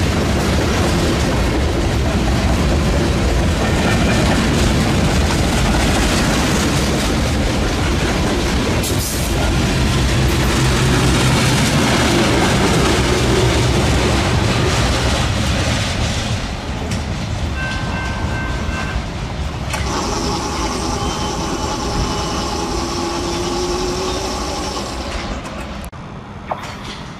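A long BNSF freight train rolls past, its boxcars and lumber-loaded flatcars rumbling and clattering over the rails. After about sixteen seconds it grows quieter as the train moves away, with thin steady whining tones over the rumble.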